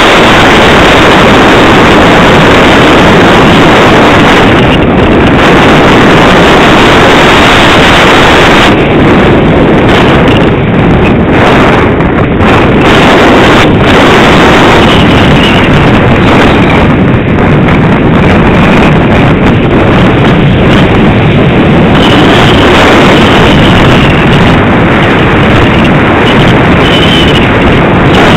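Loud, distorted rush of wind and airflow over the onboard camera microphone of an EasyStar II RC plane in flight. The hiss thins in places through the middle and then comes back.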